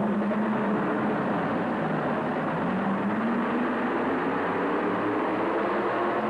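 Modified pulling truck's engine running hard under load as it drags the pulling sled, its pitch rising a little partway through.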